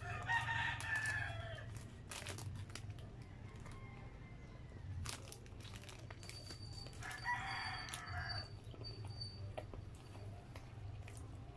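Two long, pitched animal calls, each about a second and a half, one just after the start and another about seven seconds in. Crinkling of a plastic sandwich wrapper and small clicks fall between them.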